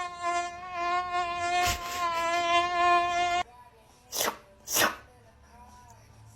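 A steady, even-pitched buzzing whine, like a played insect sound effect, that cuts off suddenly about three and a half seconds in. It is followed by two short noisy bursts.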